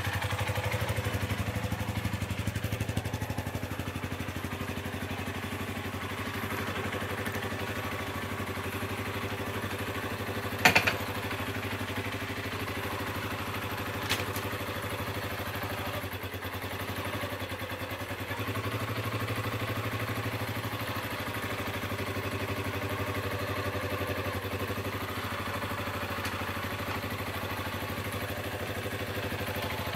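Yamaha XG250 Tricker's air-cooled single-cylinder engine idling steadily during a carburettor running check. A sharp clack about a third of the way in, and a lighter click a few seconds later.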